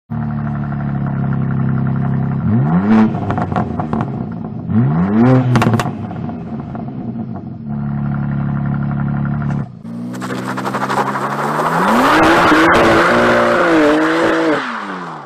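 2023 BMW M2's twin-turbo inline-six idling, blipped twice so the note rises and falls each time. After a brief cut it revs hard, its pitch wavering under load over a loud hiss of spinning, smoking rear tyres, then falls away near the end.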